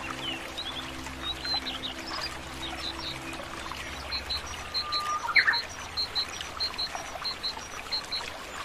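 Running water hisses steadily under scattered bird chirps. Soft sustained low music notes end about four seconds in. After that a bird repeats a high double chirp about every half second, and a louder rising call comes about five seconds in.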